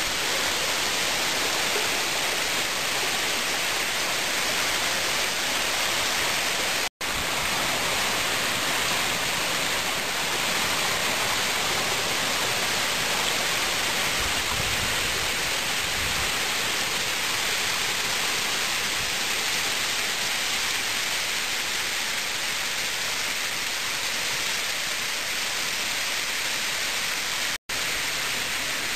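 Steady rushing of creek water running over rocks and a waterfall pouring into a pool, with two brief drop-outs in the sound, about seven seconds in and near the end.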